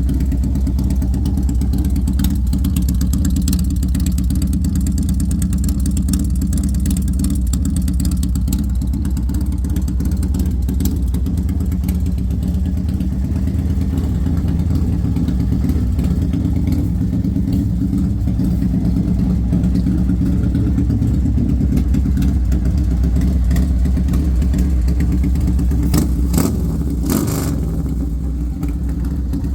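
Harley-Davidson Sportster's air-cooled V-twin engine running steadily with an uneven beat, which the owner suspects is a misfire. A few sharp cracks come near the end.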